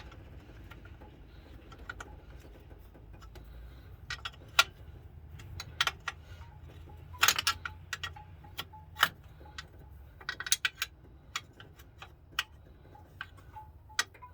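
Irregular sharp metallic clicks and clinks of hand tools working on a car engine, a few louder than the rest and a quick run of them about ten seconds in, over a faint low hum that fades out about four seconds in.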